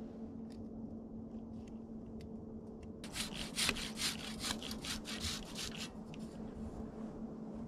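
Hand saw cutting through a fallen tree trunk: a quick, even run of back-and-forth strokes, about three to four a second, starting about three seconds in and fading near the six-second mark.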